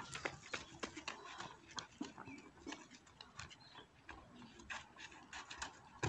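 Faint footsteps on dry dirt, a scatter of soft thuds that quicken into a short run-up near the end, closing on a sharper thud as the jumper takes off or lands.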